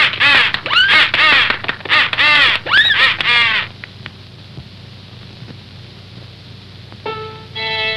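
Cartoon bird calls: a rapid string of harsh squawks, each rising and falling in pitch like a crow cawing, stopping about halfway through over the old soundtrack's steady hiss. Near the end, held musical notes start up.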